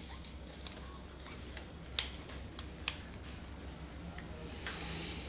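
Sharp little clicks and taps of a Sigma 24-70 mm zoom lens being handled and worked on by hand during cleaning, the loudest about two seconds in, then a brief scraping rustle near the end.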